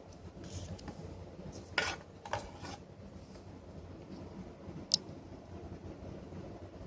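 Small handling noises: two short scrapes about two seconds in, then a single sharp click about five seconds in, over faint room noise.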